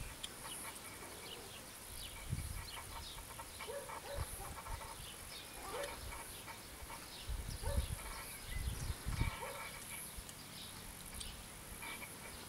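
Young kittens mewing: a handful of short, thin rising calls spread over several seconds. Dull low thumps on the microphone come in the middle.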